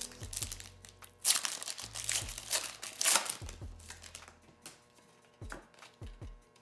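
Foil wrapper of a Pokémon trading card booster pack crinkling and tearing open by hand, in a few bursts of rustling.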